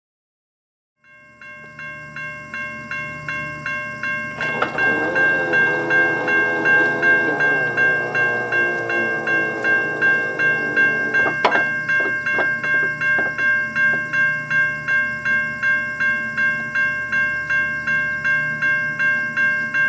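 Railway level crossing warning bell ringing in rapid, even strikes, fading in over the first few seconds. From about four seconds in, a lower wavering tone sounds under the bell and slides down in pitch. It stops at a sharp clunk about halfway through, followed by a few fainter knocks.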